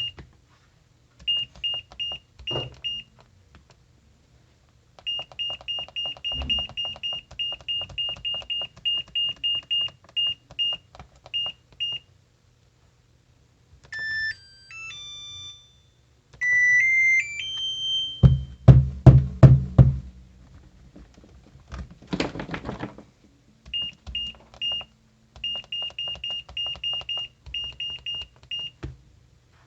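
Electronic beeper of a washing-machine control board sounding runs of short, high beeps, about three a second, with a short stepped tone melody partway through. A burst of loud, low thumps comes about two-thirds of the way in.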